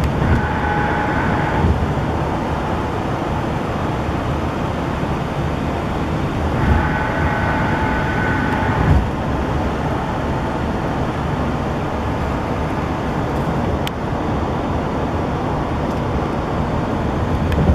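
Road noise inside a moving car: a steady rumble of tyres and wind. A faint steady higher hum comes in twice for a second or two.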